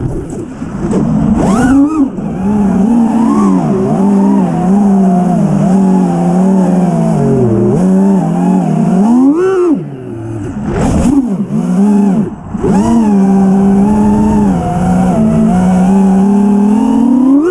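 Motors of a 5-inch 6S FPV quadcopter (iFlight Xing-E 2207 1800kv spinning HQProps 5x4.3) whining, their pitch rising and falling with the throttle, with several quick throttle cuts and sharp punch-outs. Recorded on board by the quad's GoPro Hero 5 Session.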